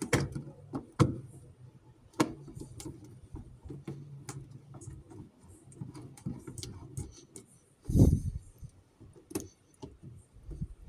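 Scattered clicks and knocks of hard plastic parts being handled and fitted together as a washing machine's drain valve is reassembled after its rubber seal and spring are replaced, with one heavier thump about eight seconds in.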